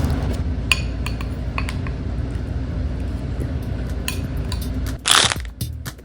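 Hard acrylic pieces being handled: scattered light clinks and scrapes over a steady low hum, with one brief, louder scraping rush about five seconds in.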